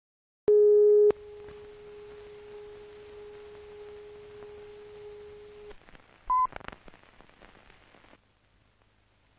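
Steady line-up test tone on the soundtrack of an old film transfer: a loud burst of tone, then a steady tone for several seconds with a faint high whine, cut off suddenly. About half a second later a short, higher sync beep from the countdown leader sounds, followed by a few crackles and clicks of the film soundtrack.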